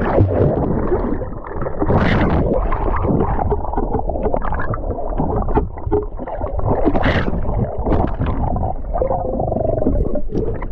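Muffled water sloshing and bubbling around an action camera in the water while swimming, with louder splashes about two seconds in and again about seven seconds in.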